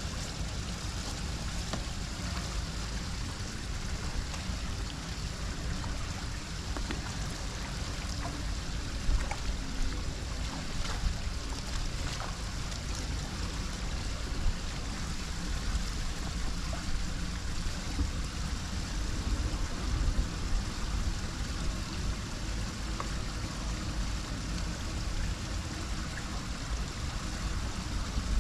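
Floodwater running into a storm drain: a steady rush of flowing water over a deep rumble, with a few brief louder knocks.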